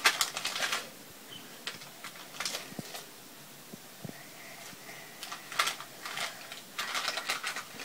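Candy-coated chocolates clicking and rattling against a small candy tin as a child picks them out, in a few short bursts of light clicks.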